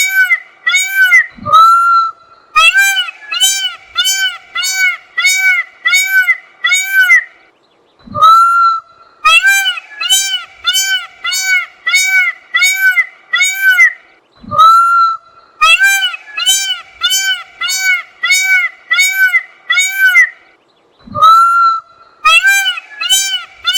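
Peacock giving a rapid series of loud, nasal honking calls, about two a second in runs of roughly eight. Each run ends with a sharp falling note and a short gap, and the pattern repeats regularly like a loop.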